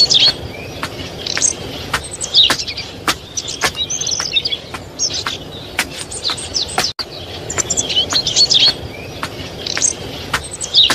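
Outdoor ambience track of birds chirping and twittering over a steady background noise, with sharp clicks scattered through it. The track drops out for an instant about seven seconds in and starts over.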